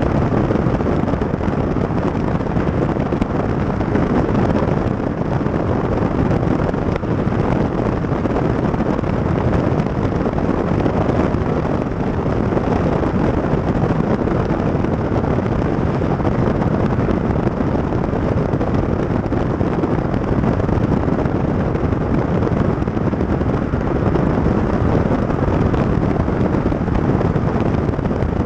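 Wind buffeting the microphone of a camera mounted on the outside of a moving car, mixed with the car's road and tyre noise: a loud, steady rumble with no let-up.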